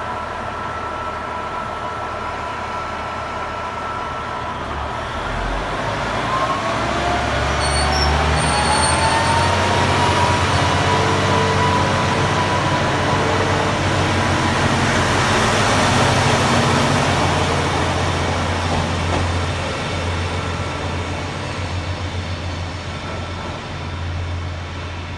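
Two-car KiHa 40 series diesel railcar set pulling away from a station, one car with a replacement Cummins engine and the other with its original Niigata engine. The engines rev up under load with a rising whine and a deep drone that builds about six seconds in, then slowly fades as the train draws away.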